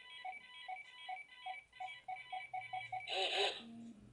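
Hasbro Boba Fett electronic mask playing a sound effect through its small speaker: a run of electronic beeps that come faster and faster, then a short loud burst of noise about three seconds in.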